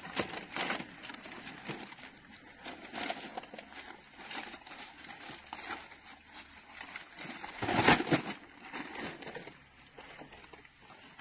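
A herd of wild boar with piglets rooting through rubbish bags at street bins: irregular grunts, rustling and knocks. The loudest burst comes about eight seconds in, and it goes quieter in the last second or so.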